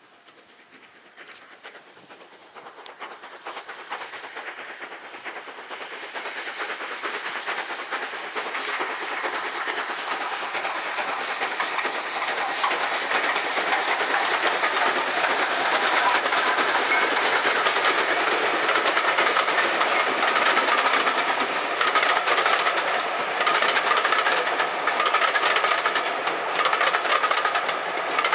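Steam train approaching and passing, double-headed by two steam tank locomotives: their working grows steadily louder over the first half, then stays loud with the clatter of carriage wheels over the rail joints as the coaches go by.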